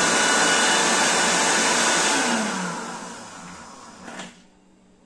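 Electric kitchen blender grinding chopped sausage with a little water at full speed, then switched off about two seconds in and spinning down with a falling whine. A short knock about four seconds in.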